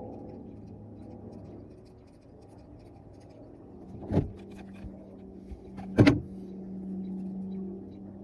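A steady motor hum that drops away and then comes back at a higher pitch, with two sharp knocks, the louder one about six seconds in.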